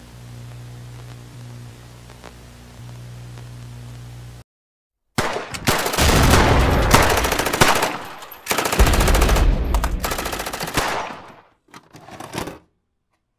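A low steady drone that cuts off about four seconds in. After a brief silence come two long, loud bursts of rapid rattling noise, then a few short ones, stopping abruptly near the end.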